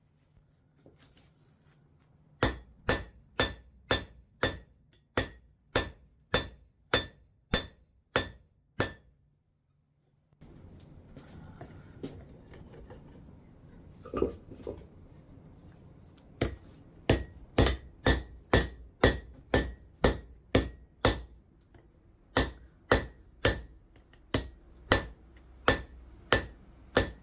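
Steel hammer blows on steel, a steady run of about two strikes a second, each with a bright metallic ring. A piece is being hammered cold into the swage block to form a groove. The blows stop for several seconds midway, leaving a low steady noise, then resume.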